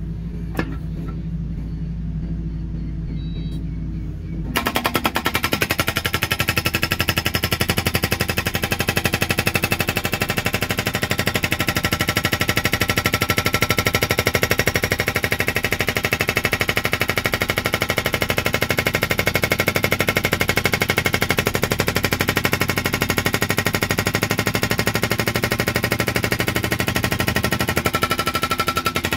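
Kubota mini excavator's engine running, then about four and a half seconds in a hydraulic breaker hammer starts pounding rapidly and keeps on, breaking concrete.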